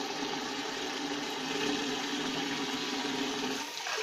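Tap water running steadily through an LED water-saving aerator nozzle on a bathroom faucet, splashing into the washbasin and over hands being rinsed under the stream.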